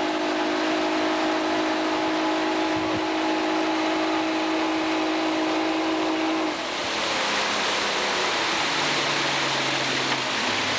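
Motorboat engine running steadily at speed while towing, with the rush of water and wind over it. About two-thirds of the way through the engine tone drops away and a louder rushing wash of wake water and wind takes over.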